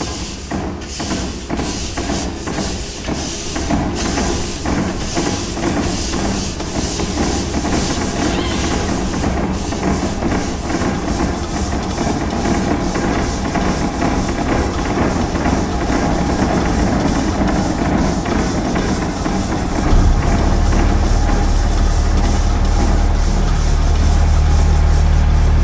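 Sound-design soundtrack of layered machine noise: a dense run of clicks and clatter over hiss, growing steadily louder, joined by a deep steady drone about twenty seconds in.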